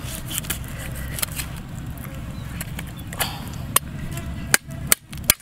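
Cleaver chopping through an animal's head and bone on a wooden chopping block: scattered short chops, then several hard, sharp strikes in the last second and a half.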